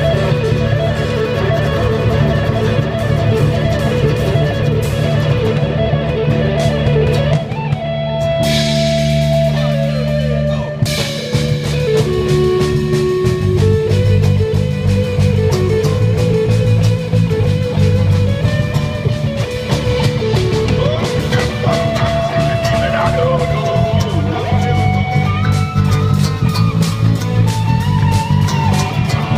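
Instrumental guitar jam with no vocals: an acoustic guitar strummed while an electric guitar plays sustained lead notes over a steady low bass.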